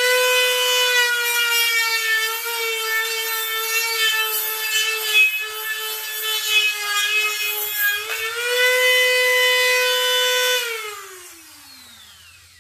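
Dremel rotary tool with a flap wheel spinning up and running at a steady high whine, sagging slightly in pitch under load as it sands powder coat out of an A-arm's ball-joint bore so the ball joint will press in more easily. Switched off near the end, its whine falls away as it winds down.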